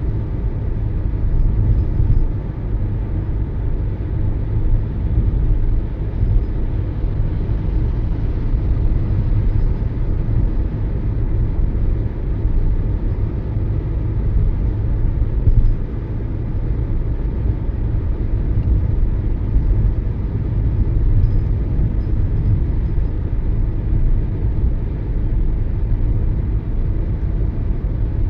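Toyota Yaris driving, a steady low rumble of road and engine noise.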